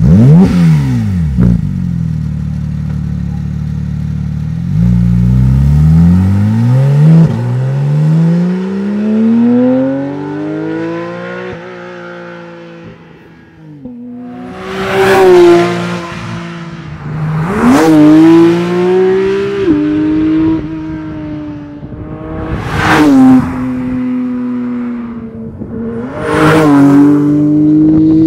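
Porsche 992 GT3's 4.0-litre flat-six breathing through a 76 mm sport rear silencer with exhaust flaps. It runs steadily, then revs up and fades away. About halfway in it returns, accelerating hard through several gears, the pitch climbing and dropping at each change, with four loud, sharp peaks.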